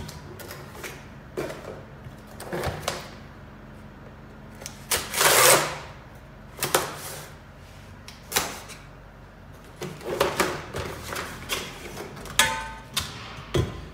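Cardboard box and packaging of a Thule Wingbar Edge Evo aluminium roof bar being handled and opened: scattered knocks and rustles, with a longer scrape about five seconds in. Near the end, a short scraping ring as an aluminium bar is slid out of its box.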